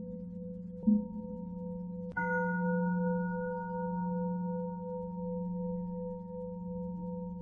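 Bells struck at intervals over a steady low ringing hum: a soft strike about a second in, then a louder, brighter strike about two seconds in that rings on and slowly fades.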